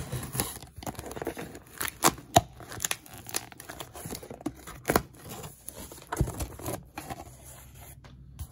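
A cardboard shipping box being cut and pulled open with a folding knife: packing tape tearing and cardboard flaps ripping and scraping in a run of irregular sharp rasps, loudest a little after two seconds and near five seconds in.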